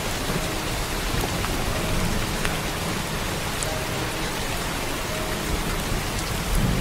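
Steady heavy rain falling on the ground, an even hiss with scattered sharp drop ticks.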